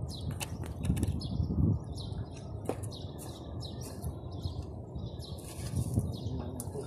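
Small birds chirping in quick, repeated short calls over a steady low rumble, with a few faint clicks in the first few seconds.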